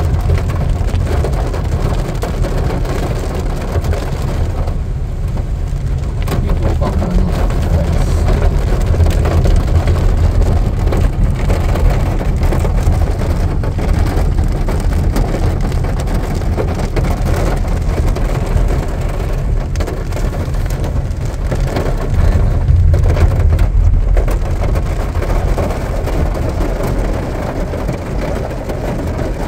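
Heavy rain falling on a moving sedan, with a steady low rumble from the car and its tyres on the wet road.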